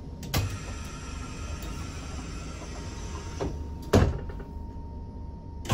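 Class 456 electric multiple unit's bi-parting sliding passenger doors closing. A sharp click comes just after the start as they begin to move, and they shut with a loud thud about four seconds in, over the train's steady low hum.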